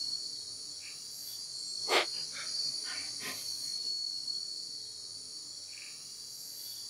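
Steady, high-pitched chorus of crickets and other night insects, with one short, louder sound about two seconds in.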